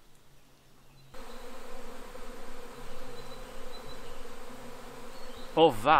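A swarm of flying insects buzzing: a steady, even hum of many wings that starts suddenly about a second in.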